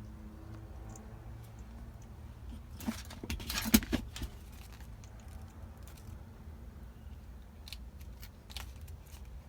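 A hand tool working on wiring gives a short cluster of sharp clicks and snips about three to four seconds in, with a few faint ticks later. A low steady hum runs underneath.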